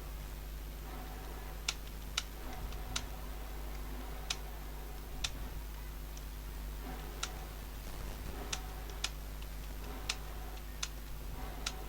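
Computer keyboard keystrokes, single sharp clicks at an uneven, slow pace of about one a second, over a steady low electrical hum.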